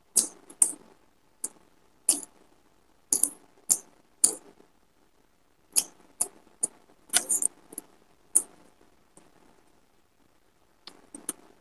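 Mouth sounds of someone eating fish and rice: irregular wet smacks and clicks of chewing, a dozen or so, with a pause of about two seconds before a few more near the end.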